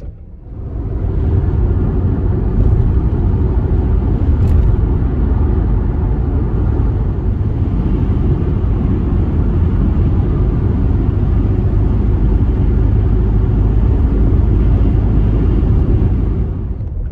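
Van driving on the road: a steady rumble of engine and road noise that swells up about a second in and holds.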